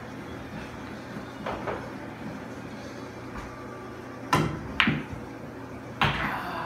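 Pool shot: the cue tip strikes the cue ball about four seconds in, and the cue ball clicks against an object ball half a second later. A heavier knock with a short ringing tail follows near the end as a ball meets the table.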